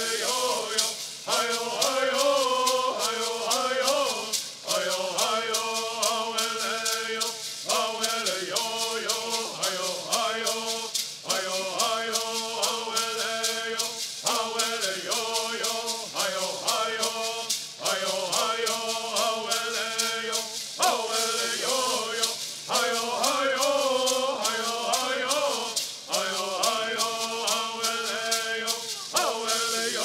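Native American bird songs: a group of men chanting in unison in repeated phrases over the steady shaking of gourd rattles.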